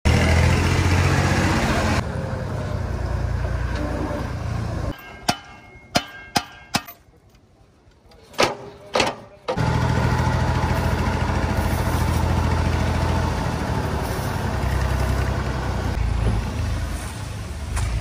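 Diesel tractor engine running steadily while its trolley tips a load of sand. About five seconds in the engine sound drops away for a few seconds, and a handful of sharp knocks are heard before it returns.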